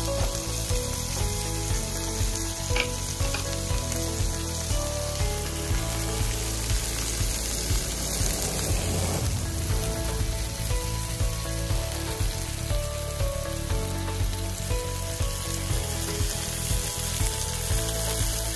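Beef steaks, sliced red onions and butter frying in a metal baking tray on a portable butane stove: a steady sizzle.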